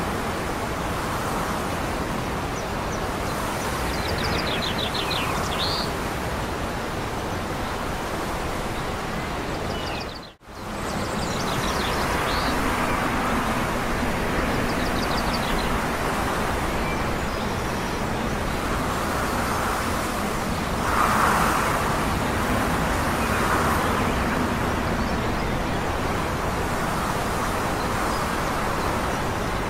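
Steady distant traffic-like rumble and outdoor noise, with a few short bird chirps. The sound drops out completely for a moment about ten seconds in, then resumes, a little louder around twenty seconds in.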